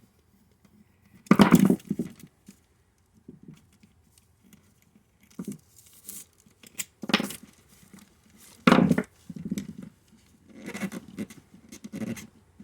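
Hand-work on a car's vent window assembly: a metal pivot piece and its rubber seal being handled and fitted, giving scattered rustles and clinks with a few sharper knocks.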